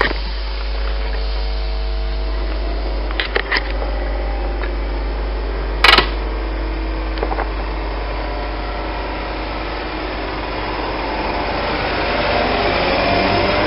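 Class 320/4 electric multiple unit (a converted Class 321) standing at the platform, its equipment humming steadily with several steady tones. Towards the end its traction motors whine, rising in pitch and growing louder as it pulls away. There is a single sharp click about six seconds in.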